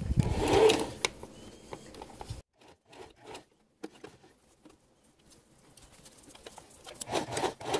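Sewing machine basting a zipper seam in short, irregular spurts. It is loudest in the first second, then there are scattered small clicks, and a louder spell comes near the end.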